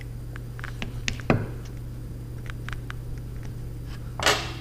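A wrench clinking and tapping against the milling machine head's quill cover as it is worked loose: scattered light clicks, one sharper knock about a second in, and a brief louder scrape near the end, over a steady low hum.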